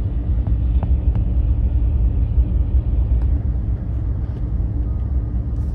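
Steady low rumble of a vehicle's engine and tyres heard from inside the cab while it moves slowly over rough ground, with a few faint small knocks.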